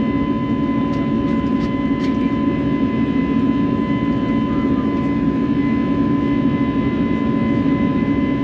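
Steady cabin noise inside an Airbus A321 jetliner: the jet engines and airflow make an even, low drone, with faint steady whining tones above it.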